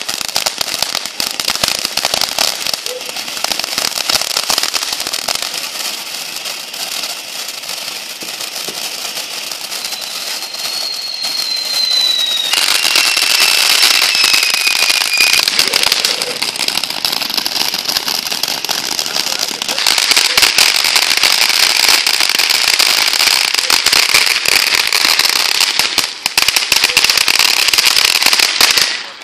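Ground fireworks fountain spraying sparks: a steady hiss thick with rapid crackling, and a brief whistle about ten to fifteen seconds in. It grows louder twice and cuts off suddenly near the end.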